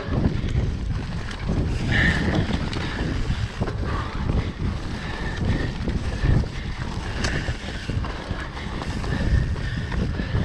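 Enduro dirt bike running under way, a rough low rumble with wind buffeting the microphone.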